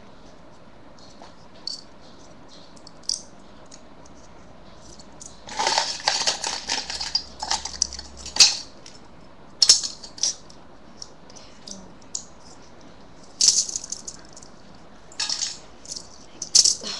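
Small hard objects rattling and clicking against a plastic container as they are handled, in irregular bursts. The longest rattle comes about a third of the way in, followed by several short sharp clicks.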